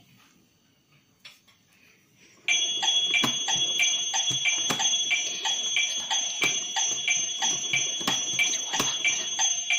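Electronic toy clock playing a steady electronic tone with a regular ticking, about three ticks a second, through its small speaker. It starts suddenly about two and a half seconds in, while the clock's plastic hands are being turned.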